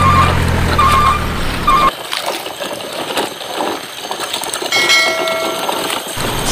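A heavy truck engine running with a low steady hum, with three short beeps like a reversing alarm, cutting off abruptly about two seconds in. After that comes a rough rustling noise, with a brief higher-pitched tone about five seconds in and the engine hum starting again just before the end.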